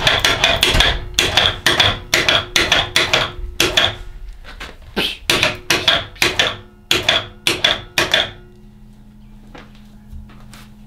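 Overhead electric winch hoisting a coyote carcass while its hide is clamped to the floor by vise grips. A fast run of sharp clicks, about three or four a second with a short break near the middle, plays over a faint motor hum. The clicking stops about eight seconds in, leaving the low hum.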